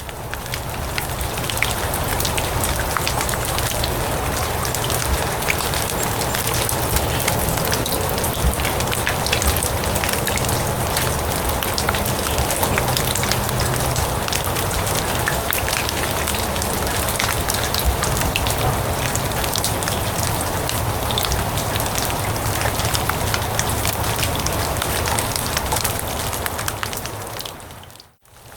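Steady rain falling on grass, a dense hiss dotted with many small drop impacts. It fades in over the first couple of seconds and fades out near the end.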